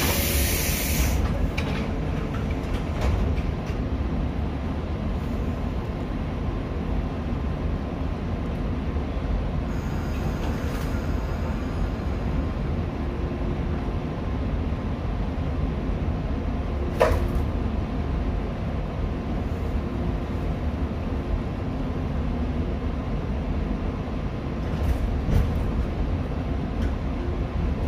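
Shinano Railway 115-series electric train (KuMoHa 115-1067), heard through an open window: a steady low rumble, with a brief hiss at the start and a single sharp knock about 17 seconds in.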